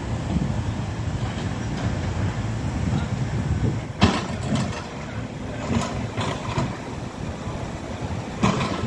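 Heavy construction machinery running with a steady low rumble, and a single sharp knock about four seconds in.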